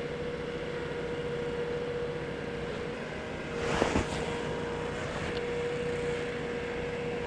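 A motor running steadily, a constant hum over a low rumble, with a brief rush of noise and a couple of knocks about four seconds in.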